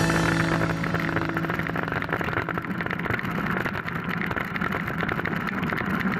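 Mountain bike ride noise: a steady rumble with dense, rapid rattling.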